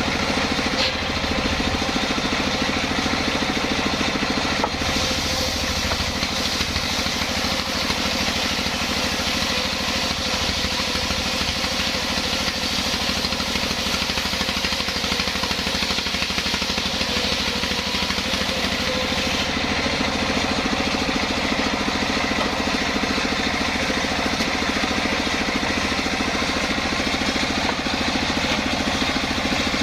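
Sawmill machinery running steadily: a constant engine-like drone with a hiss above it, as the mill saws an old jackfruit log.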